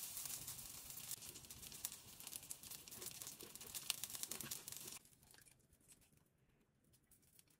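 Faint sizzling from chicken frying in a pan: a steady crackle with many tiny pops that stops abruptly about five seconds in, leaving a few faint clicks.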